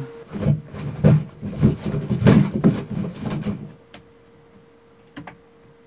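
Foley props being handled and knocked about: a busy run of thuds, knocks and rustles for about three and a half seconds, then a few light clicks.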